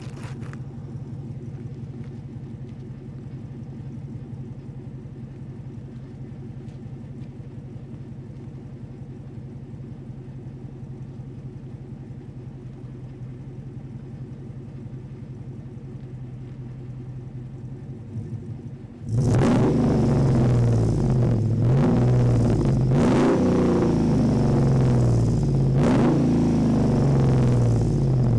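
Jeep Wrangler JK's swapped 5.7 Hemi V8 heard at the tailpipe, idling steadily, then revved loudly several times from about two-thirds of the way in, the pitch climbing and falling with each blip.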